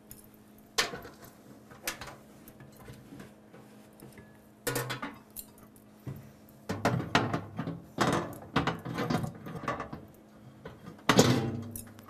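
Glass microwave turntable plate and its roller ring being set back into the microwave: scattered knocks and clinks, a run of clattering in the second half, and the loudest knock near the end.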